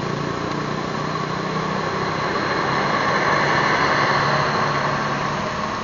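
A vehicle engine running steadily, with a passing vehicle's hiss swelling to a peak around the middle and easing off near the end.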